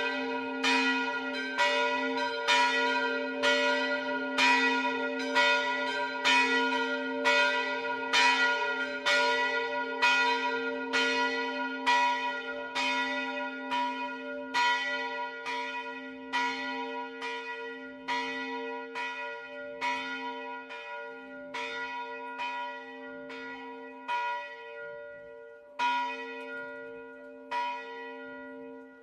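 Church bells of St Michael's bell tower ringing one after another, about two strikes a second, each note ringing on over a steady hum. In the last third the strikes grow quieter and sparser, with only a few single strikes near the end as the ringing dies away.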